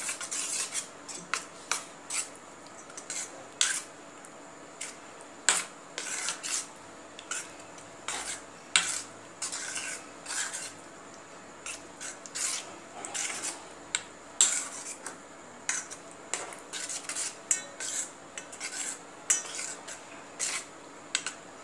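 A spoon stirring a thick brinjal-and-yogurt mash in a steel pan, with irregular short scrapes and clinks of the spoon against the metal.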